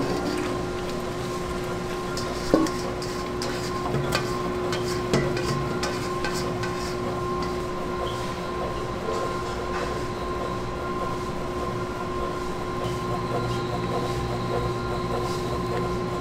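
Bakery production machinery running with a steady hum, with a few sharp knocks in the first five seconds.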